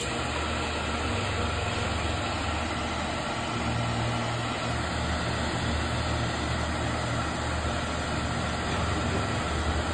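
Bench brake lathe switched on, its electric motor and spindle running steadily with the brake drum spinning on the arbor and the cutting bits not yet in contact. A steady low hum with an even mechanical whir over it.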